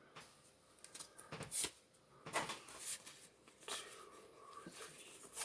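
Pokémon booster pack and its cards being handled: several short rustles and crinkles of the foil wrapper and card stack.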